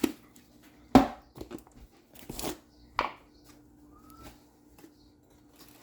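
Kitchen handling noises while a chicken marinade is being made: a few sharp knocks and taps of a utensil or container, the loudest about a second in, with light rustling between them.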